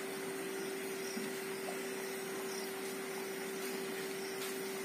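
A steady, even hiss with one constant low-pitched hum running under it. A few faint, short high chirps come and go.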